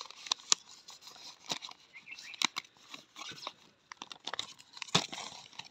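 Thin plastic packaging bag crinkling and crackling as it is handled and pulled open, in irregular bursts with sharp snaps about half a second in, around two and a half seconds in and about five seconds in.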